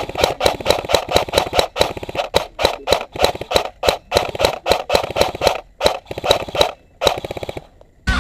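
Airsoft guns firing: a fast string of sharp shots at about five a second, followed near the end by a short, faster burst.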